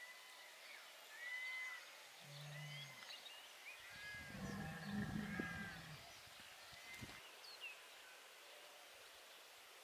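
Faint rural outdoor ambience: short whistled bird calls come and go, and a low, drawn-out animal call sounds from about four to six seconds in, the loudest thing in it.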